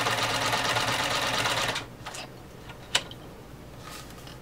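Omega 307 sewing machine stitching cotton fabric at a steady speed with the stitch length set to 2, stopping about two seconds in. A single sharp click follows about a second later.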